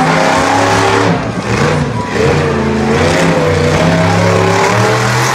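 Monster truck engine revving loud, its pitch rising and falling as the truck drives.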